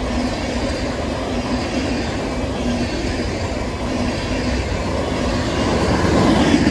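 Freight cars loaded with wind-turbine blades rolling past on steel wheels, a steady rumble and rattle on the rails. It grows loudest near the end as the last flatcar goes by close at hand.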